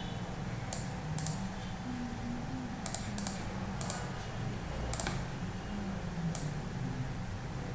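Scattered sharp clicks from a computer keyboard and mouse, about eight in all, some singly and some in quick pairs, over a steady low hum.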